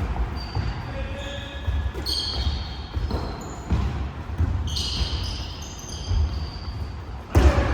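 A basketball being dribbled and bounced on a hardwood gym floor, with irregular thuds and short high squeaks of sneakers on the court during a game. The loudest thud comes near the end.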